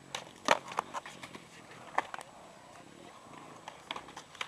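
Skateboard clacks and knocks: a few sharp hits of the board on the ground in the first second, then another pair about two seconds in.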